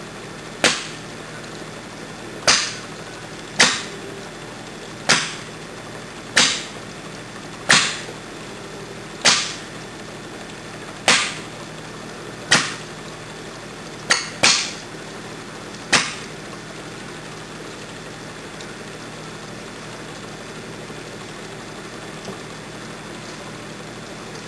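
Oxyhydrogen (HHO) gas from a bubbler tube's outlet hose igniting in a propane torch flame: about a dozen sharp pops, one every second and a half or so, which stop about 16 seconds in. A steady hiss runs underneath.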